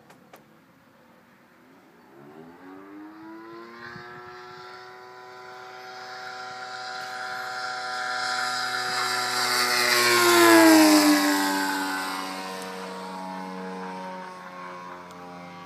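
Propeller-driven Sukhoi plane flying past: its engine grows louder from about two seconds in, and is loudest as it passes overhead about ten seconds in. There the pitch drops sharply, and it fades as it flies away.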